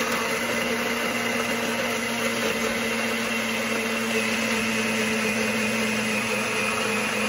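Compact personal blender running steadily under hand pressure, its motor whirring at a constant pitch as it crushes ice and grenadine syrup into a thick red slush.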